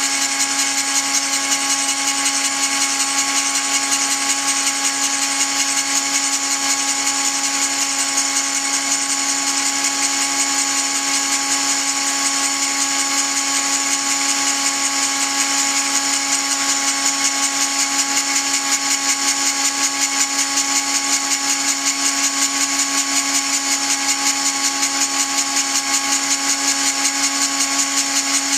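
Dremel-type rotary tool driving a shop-made tool post grinder spindle by a belt, grinding the jaws of a mini lathe's three-jaw chuck: a steady whine with a hiss, unchanging throughout.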